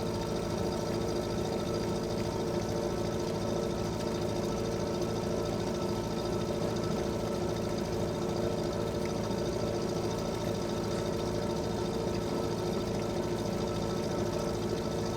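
Fishing boat engine running steadily at a constant speed, with a fast even chugging throb.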